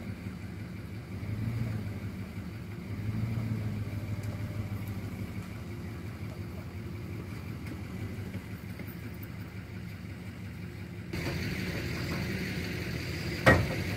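Engine of the shed-moving trailer rig idling, a steady low hum that swells slightly now and then; after a cut about 11 s in it is nearer and louder. One sharp knock near the end.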